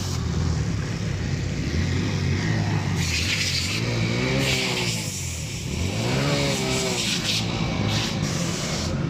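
Motorcycle engine running steadily with road hiss; twice, about halfway through and again a couple of seconds later, its pitch rises and falls as the throttle is opened and released.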